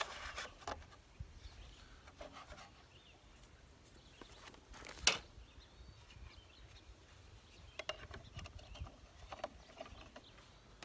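Handling noises from an EarthWay push garden seeder: light rubbing and small clicks as its plastic seed hopper and seed plate are worked by hand, with one sharp click about five seconds in.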